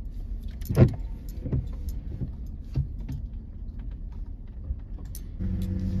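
Pickup truck engine labouring up a steep, slick dirt hill in four-wheel-drive low, with knocks and rattles as the truck jolts over the rough track. The loudest knock comes about a second in. Near the end the engine note steps up and gets louder.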